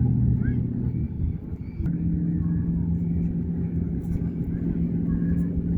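Motorboat engine running with a steady low drone; its pitch steps up about two seconds in.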